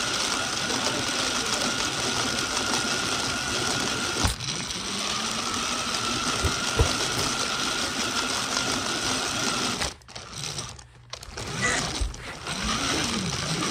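A toy car's small electric motor whirring steadily with a faint high whine, with a couple of light bumps, cutting off about ten seconds in.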